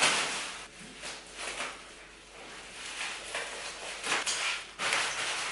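Clear plastic packing wrap rustling and crinkling as it is cut with scissors and pulled away, in several irregular spurts.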